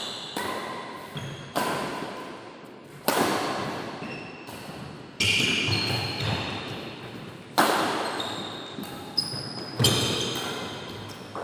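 Badminton rackets smacking a feathered shuttlecock back and forth in a rally, about ten sharp hits at irregular intervals. Each hit rings out with a long echo in a large, hard-walled hall.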